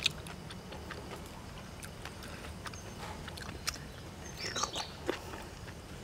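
Small clicks and taps of a bamboo stick and grilled river snail shells being handled, with a brief sucking, slurping sound about four and a half seconds in as the snail meat is eaten off the stick.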